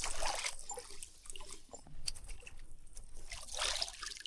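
Water splashing and trickling, with scattered small clicks and a louder splash-like swell near the end.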